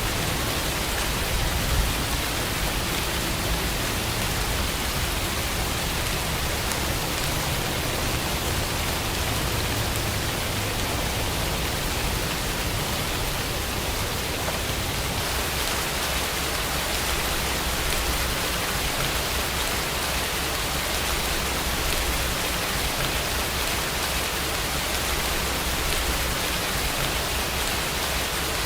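Steady rain, an even hiss with no single drops standing out. About halfway through the low rumble fades and the hiss gets brighter.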